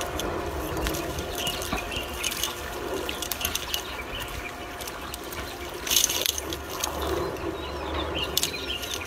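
A weighted nylon gill net paying out through a hand as it is towed out, the mesh rustling and its weighted sinkers clicking irregularly, with water sounds underneath. The clicking comes in a louder cluster about six seconds in.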